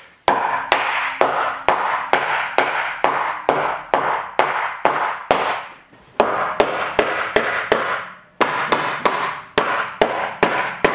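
Mallet blows driving a wooden mop board into place against a corrugated tin wall, about two to three blows a second. Each blow is followed by a short ring. There are two brief pauses, a little past halfway and again about three quarters in.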